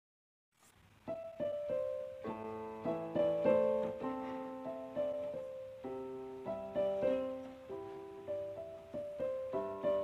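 Background solo piano music: a gentle run of single notes and chords, starting after a brief silence about a second in.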